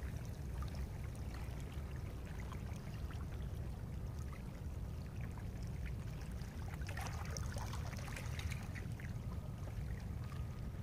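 Faint trickling and lapping of shallow seawater over rocks, over a steady low rumble, with a slightly busier patch of splashy crackle about seven seconds in.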